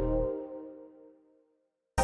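Background electronic music: a synth chord over a deep bass note that dies away, trailing off into silence about a second and a half in.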